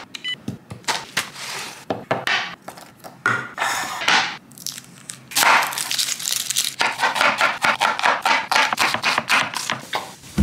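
Kitchen cooking sounds: a short electronic beep from a Zojirushi rice cooker as its buttons are pressed, papery onion skin crinkling as it is peeled, then a knife chopping quickly on a wooden cutting board, about five strokes a second, near the end.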